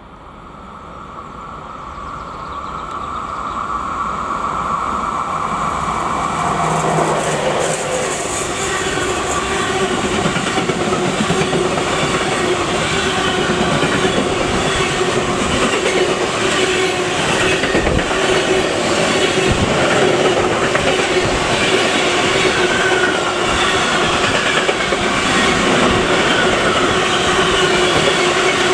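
A train on the line approaching, its noise building over the first several seconds, then passing at length with a steady rush of wheels on rails and a few low thumps.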